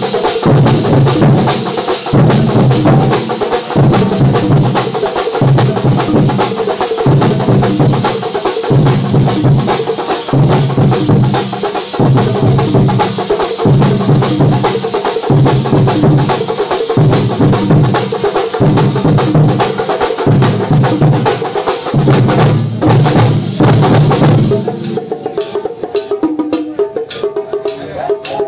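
Thambolam drum band playing large shoulder-slung drums with sticks: a loud, fast, driving rhythm with a heavy low beat pulsing evenly. About 25 seconds in, the deep drums drop out, leaving lighter clattering strokes.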